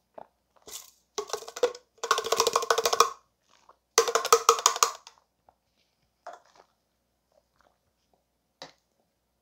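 Rapid clattering knocks as a small plastic cup is held upside down over a tall glass and tapped and shaken to free frozen strawberry Mogu Mogu slush. The knocking comes in three quick runs in the first half, with a few single taps after.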